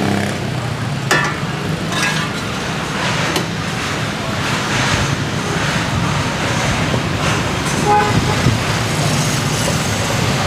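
Steady road traffic with engines running past, with a few brief clicks and a short tone about eight seconds in.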